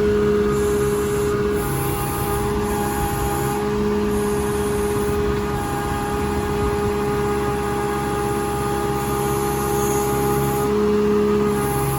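Heavy digging machine's engine running steadily, with its note shifting slightly every second or two.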